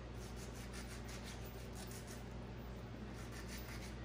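Kitchen knife scraping and cutting a ripe mango by hand: a run of short, soft rasping strokes, several a second, over a steady low hum.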